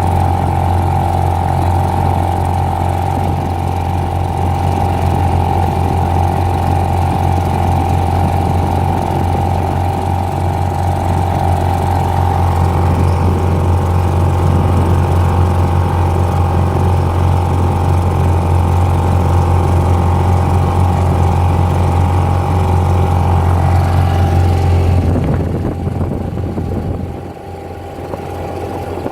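British Seagull two-stroke outboard motor running steadily under way, then slowing about 25 seconds in, after which it runs on lower and quieter.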